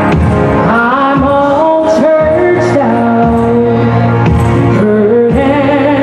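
Live music: a woman singing a held, sliding melody into a microphone over band accompaniment with sustained low notes.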